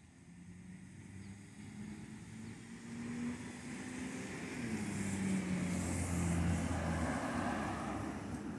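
A car drives past on the street: engine hum and tyre noise grow louder over several seconds, peak late on, then fade away.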